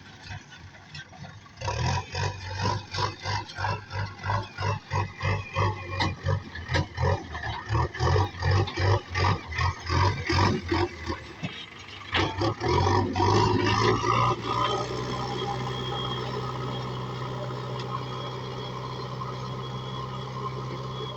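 Backhoe loader's diesel engine working, with a pulsing throb about two to three times a second, then rising about twelve seconds in and settling into a steady hum.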